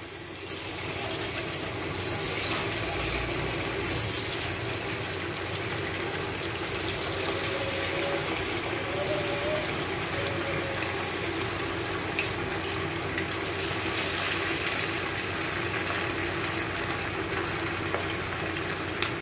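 Batter-coated chicken pieces deep-frying in hot oil in a steel pot: a steady, dense sizzle full of fine crackles.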